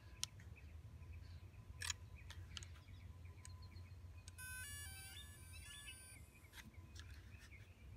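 DJI Mini 2 drone sounding a short electronic startup tune of stepped beeps after its power button is pressed, about four and a half seconds in and lasting under two seconds. A few faint clicks come before it over a low, quiet background.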